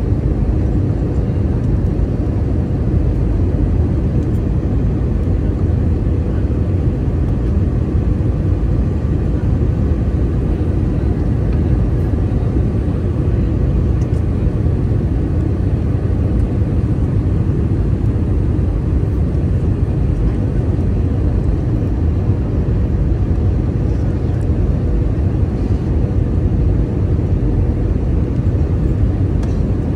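Airbus A321 cabin noise on the approach to landing: a loud, steady rumble of airflow and engines with a faint steady hum, unchanging throughout.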